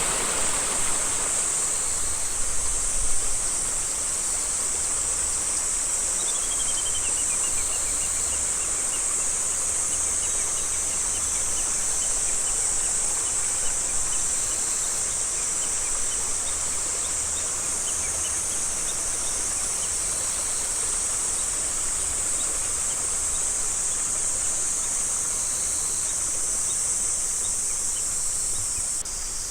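Insects chorusing outdoors: a steady, high-pitched buzz, with a faint run of short high ticks starting a few seconds in.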